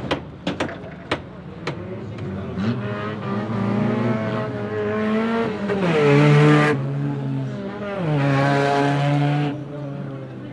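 Banger race cars' engines revving up and down as they race, after a quick run of sharp cracks in the first couple of seconds. Two loud noisy rushes come over the engines, one around the middle and one near the end.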